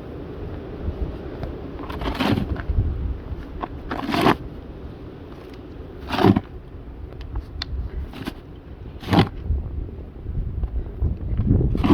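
Snow shovel scraping and crunching through packed snow in five separate strokes, about two to three seconds apart, over a low wind rumble.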